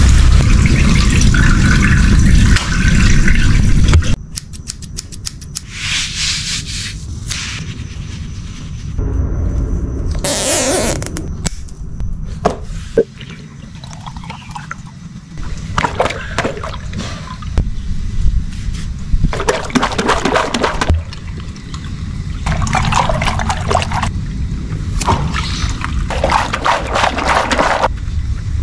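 Water gushing and splashing across a flooded mat right after a water-filled stretchy toy has burst, the hose still running. After a sudden drop in level about four seconds in, a garden hose filling stretchy rubber toys with water, swelling into louder pouring and sloshing every few seconds.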